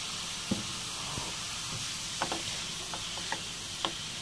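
Chopped vegetables frying in oil in a steel pan, with a steady sizzling hiss. A steel spoon clinks sharply against the pan several times as they are stirred.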